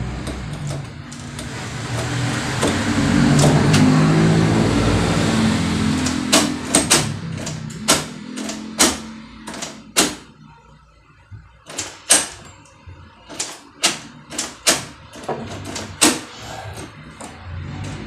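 A passing vehicle's engine rumbles, swelling and then fading over the first few seconds. Then a new brass doorknob lockset clicks and clacks repeatedly, about fifteen sharp metallic clicks, as the knob is turned and the spring latch snaps in and out while the door is worked.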